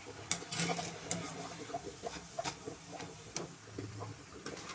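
Scattered light clicks and taps as a wire skimmer sets fried pakodas down onto a steel plate.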